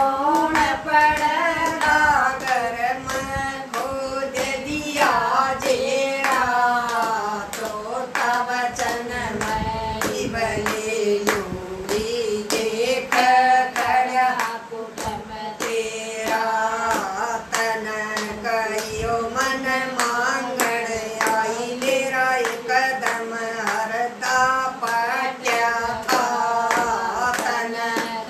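Women's voices singing a Haryanvi folk song together, keeping time with steady rhythmic hand claps throughout.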